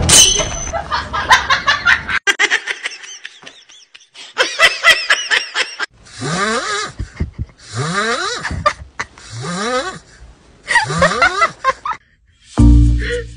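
A person laughing in repeated bursts, some quick and pulsing, others long and breathy.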